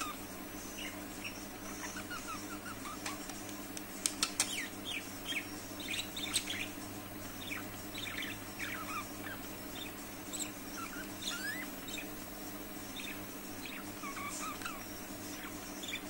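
Caged budgerigars chirping and warbling in quick, varied short notes, with a few sharp clicks about four seconds in.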